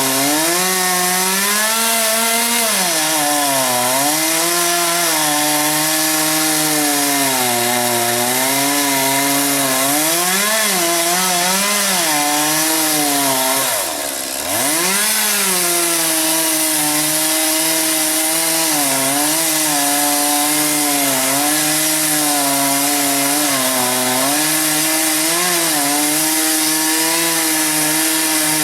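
Chainsaw running hard while cutting wood, its engine pitch sagging and recovering again and again as the chain loads up in the cut. About 14 s in it briefly drops in pitch and level, then revs back up and carries on cutting.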